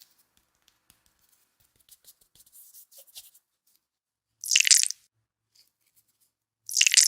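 Frozen Play-Doh in a mesh stress ball crunching as it is squeezed: faint crackling, then two loud crunches about two seconds apart.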